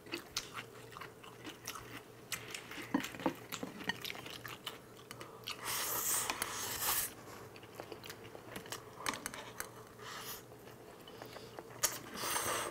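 Two people eating jjapaguetti (black-bean sauce instant noodles) mukbang-style: close-up chewing and biting with many small clicks of chopsticks and tongs, and two longer slurps of noodles, about six seconds in and near the end.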